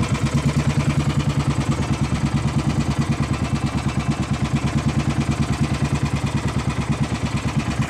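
Outrigger boat's engine running steadily underway, with a fast, even chug of about ten beats a second.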